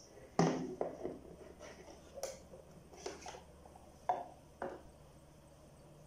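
Handling knocks and light clatter as a gourd is set down on a table and a pyrography pen and its cord are laid into a wooden box; the loudest knock comes about half a second in, with smaller knocks and clicks following, the last two near the end.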